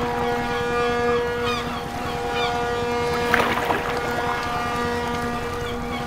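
Ship-arrival sound effect for a toy cruise liner pulling into port: a steady droning, horn-like tone held throughout over a wash of sea noise, with a surge of water about three seconds in.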